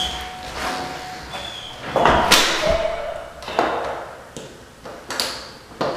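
A house door being shut: a loud slam about two seconds in, followed by a few lighter knocks and thuds.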